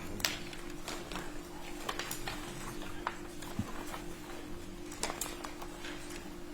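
Scattered light clicks and taps, irregularly spaced, over a steady low hum of room tone.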